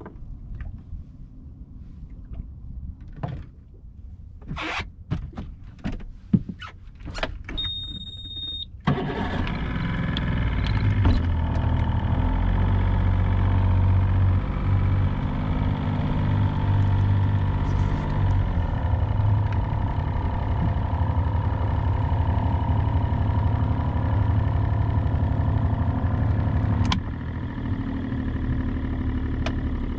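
Boat engine starting: a few knocks and clicks, a short high beep, then about nine seconds in the engine catches and runs steadily, its level dropping a little a few seconds before the end.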